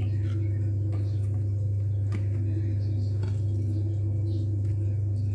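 A steady low hum, with a few faint light taps as vegetable pieces are set into a glass roasting dish.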